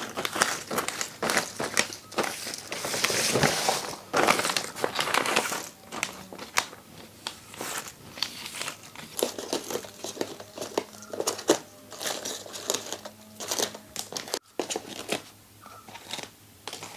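Sun-dried sago sandige crisps, dry enough now to come away from the plastic sheet, being lifted off by hand and heaped together: a crinkling of the plastic and the brittle crisps. It is busiest in the first few seconds, then thins to scattered clicks.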